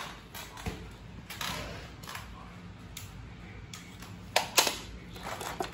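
Scattered light clicks and knocks from a Lionel O gauge model train over a faint steady hum, with two sharper clicks close together about four and a half seconds in.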